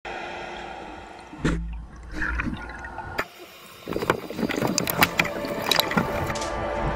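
Underwater water sounds and gurgling picked up by a submerged camera, dropping out briefly a little past the middle. Then comes a quick run of sharp clicks and knocks as an otter works at the bait right at the camera.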